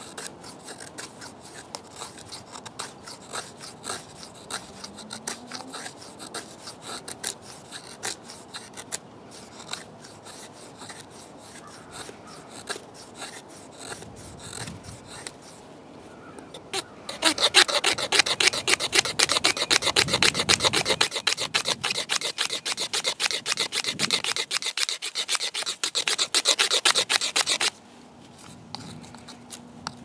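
Leatherman Wave multi-tool scraping a hardwood stick into fine tinder shavings: a quick run of short rasping strokes. A little past halfway the strokes turn much louder and denser for about ten seconds, then stop abruptly.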